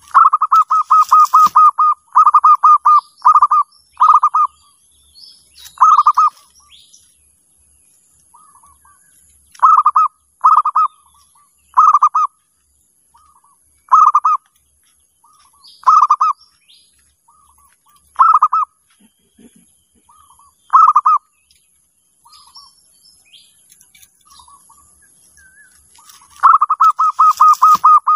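Zebra dove (perkutut) cooing: a rapid run of short coo notes, then short coo phrases repeated every second or two, and another rapid run near the end. Faint chirps of other small birds sound higher up.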